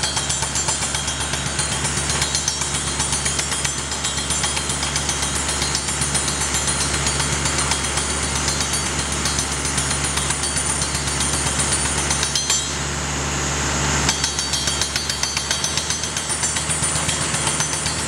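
Rock drill of a pile-driving rig hammering into rock, several sharp blows a second over the steady drone of the rig's engine and the rush of its vacuum dust extractor. The hammering stops for about a second and a half two-thirds of the way through, then resumes.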